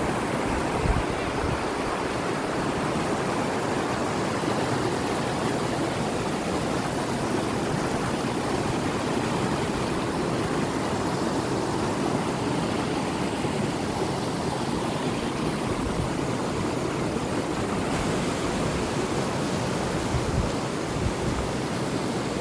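A brook rushing and splashing over rocks in small rapids: a steady rush of water.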